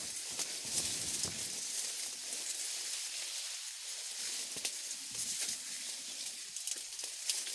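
Reed stems and leaves rustling and crackling as someone pushes through a reed bed, with scattered light snaps over a steady high hiss.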